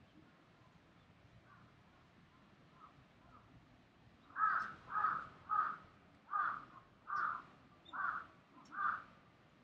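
A crow cawing: a run of seven loud caws, a little under a second apart, starting about halfway in, after a few faint calls.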